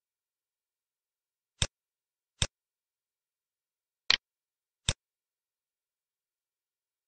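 Computer mouse clicking four times at uneven intervals, with dead silence in between; the third is a quick double click.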